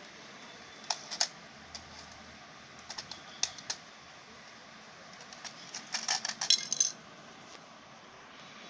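Scattered plastic clicks and light knocks from a toy RC car and its hand-held remote being handled on a hard stone floor, with a quick run of louder clatters about six to seven seconds in.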